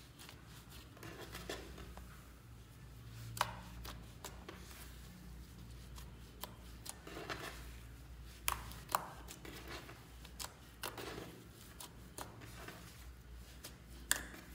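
Hands kneading and pulling apart fluffy white slime mixed with coloured sand: soft squishing with scattered sharp sticky pops and clicks, the loudest a little over three seconds in, twice around eight and a half to nine seconds, and near the end.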